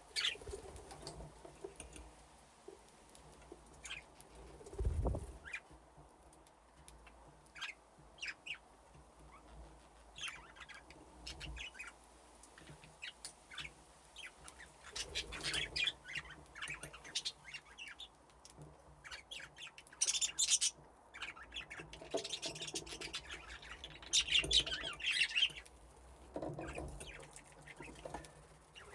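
Flock of budgerigars chirping and chattering, with short high calls scattered throughout and busier bursts of chatter around the middle and again near the end.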